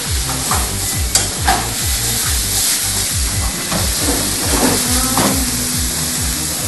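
Beef and onion sizzling in a hot frying pan on a gas hob as they are stirred and tossed with a spatula, with a sharp clack about a second in. A low, steady thumping beat of about four a second runs underneath.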